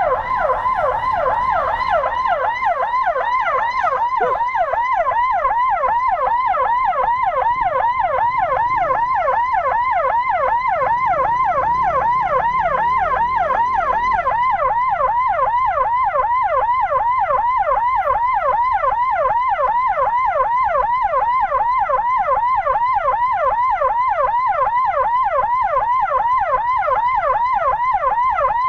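Emergency siren sounding continuously in a rapid up-and-down wail that repeats several times a second, steady in level throughout.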